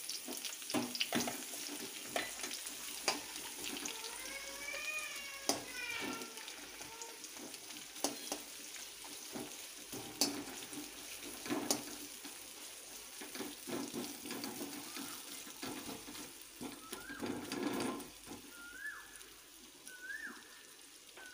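Sliced onions sizzling in oil and butter in a metal kadai, with a metal spatula scraping and knocking against the pan as they are stirred. A few short, faint rising chirps come near the end.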